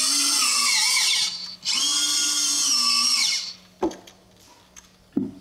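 RC sail winch servo motor whining as it winds the sail control line, its pitch wavering as it runs. It stops about a second in, runs again briefly, and winds down with a falling pitch, followed by a few faint clicks.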